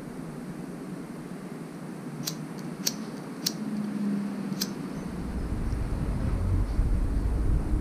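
A disposable lighter's wheel clicks four times, about two to five seconds in, without catching, as it is readied to burn the ends of a nylon cord. Under it is a steady background hum, and a low rumble comes in about five seconds in.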